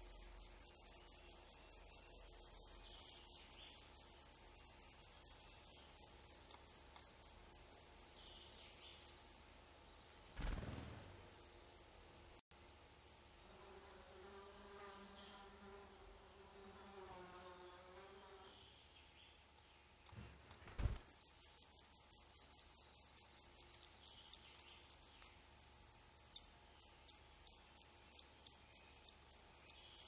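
Black redstart nestlings begging for food: a rapid, very high-pitched chatter of calls, many a second. It dies away about ten seconds in and starts again abruptly, right after a soft thump, a little past twenty seconds in, as an adult comes to the nest to feed them.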